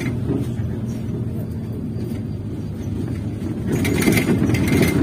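Cabin of a moving MAZ-203 on the road: a steady low running hum with road noise, swelling into a louder rush of noise from about four seconds in.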